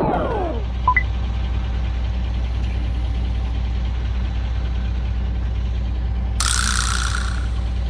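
Steady low drone of a vehicle engine running, with a short hiss about six and a half seconds in.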